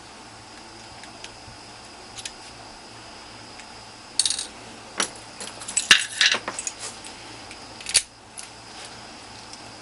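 Small metal padlock parts clicking and clinking as the lock is taken apart, with the C-clip being removed and the plug worked out. A few faint ticks come first, then a flurry of sharp metallic clinks about halfway through, ending with one last clink.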